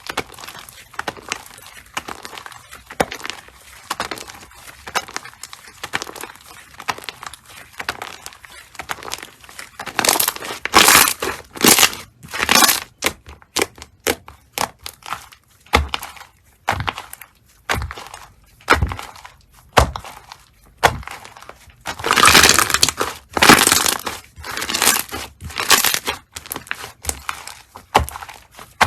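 Slime being squeezed and pressed by hand, giving crackling, crunching pops. The crackling comes in runs, growing louder and denser about a third of the way in and again after the two-thirds mark.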